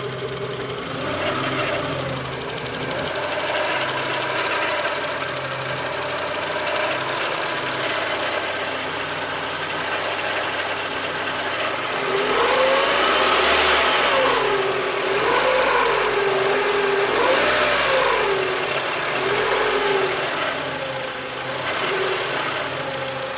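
Honda Civic D16V1 four-cylinder engine running, idling steadily at first, then revved briefly several times in the second half, each rev rising and falling in pitch. It has a noise that appeared after a timing belt change.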